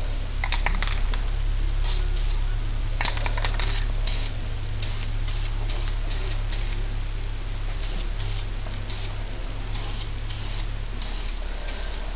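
Aerosol can of Krylon metallic silver spray paint sprayed in many short hissing bursts, a fraction of a second each, as plastic trim pieces are coated. A steady low hum runs underneath.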